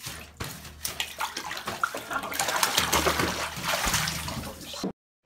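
Bathwater splashing and sloshing in a full bathtub, heaviest in the second half, then cutting off suddenly near the end.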